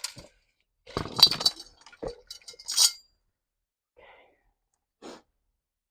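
Hard objects clinking and rattling as they are handled, in two clattering bursts about a second and a half apart, followed by a couple of faint knocks.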